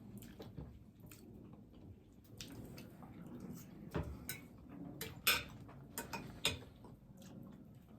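Close-miked eating: quiet chewing and mouth sounds with scattered sharp clicks, a handful of louder ones between about four and six and a half seconds in.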